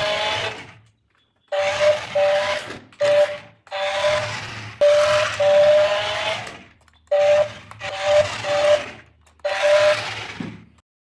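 Small electric motor of a toy remote-control car whining with a gear rasp, run in about nine short bursts with brief pauses. The pitch rises a little within each burst, and it cuts off near the end.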